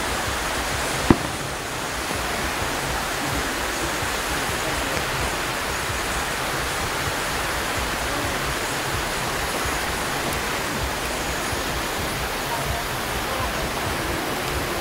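Steady, even rushing noise with a single sharp click about a second in.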